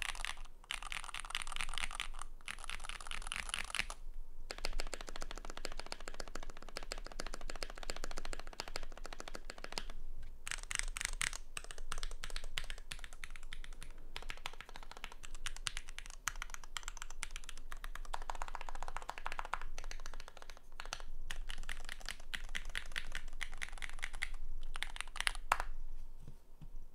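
Continuous typing on a Keychron Q3 mechanical keyboard with lubed Gateron X linear switches on a steel plate and lubed stabilisers. It is a dense run of keystrokes broken by a few short pauses, and it stops just before the end.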